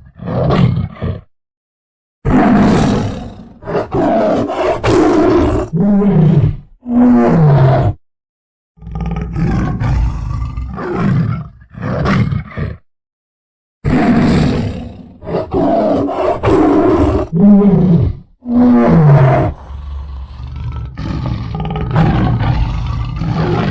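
Tiger roaring and growling in a run of short, loud bursts, some ending in a call that falls in pitch. The bursts are broken by brief gaps of dead silence where the recording is cut, and the sequence repeats about halfway through.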